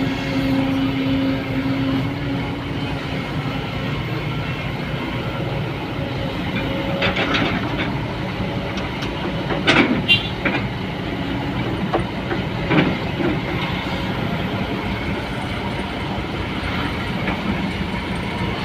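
A steady, heavy mechanical rumble with a few sharp metallic clanks: a cluster about seven seconds in, the loudest pair about ten seconds in, and another near thirteen seconds.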